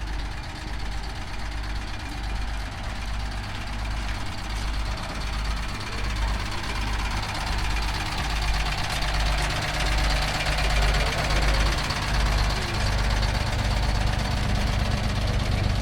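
Diesel engine of a train idling, with a low throb about once a second over a steady hum. A rushing hiss builds up from about six seconds in, and the sound grows somewhat louder.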